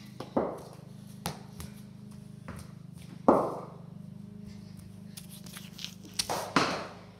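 A handful of separate knocks and thumps in a concrete garage over a steady low hum; the loudest comes about three seconds in and rings on briefly, and two more follow close together near the end.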